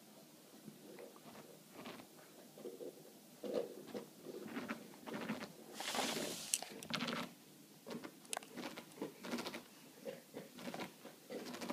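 Soft, irregular pattering, rustling and small clicks of a rabbit moving about on carpet and pressing its head into a long-haired dog's fur. A longer, louder rustle about six seconds in.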